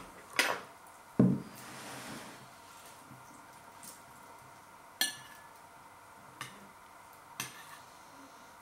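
Metal spoon clinking against a bowl as curried potatoes are stirred and scooped: a few separate sharp clinks, one with a brief ring about five seconds in, and a dull knock about a second in.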